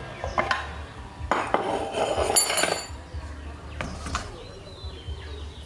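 Metal parts clinking and clattering as a motorcycle's rear drum-brake assembly is pulled from the wheel hub and handled. There is a dense run of clinks with a few ringing metallic tones about one and a half to three seconds in, then a couple of knocks about four seconds in.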